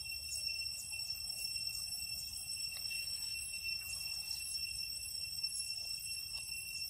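Steady, high-pitched insect chorus, with a few faint ticks.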